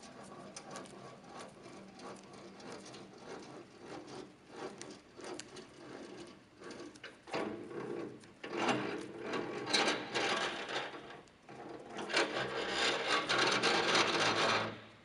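Vertical band saw blade rasping through a workpiece, uneven and scratchy, louder in two stretches in the second half and stopping abruptly just before the end.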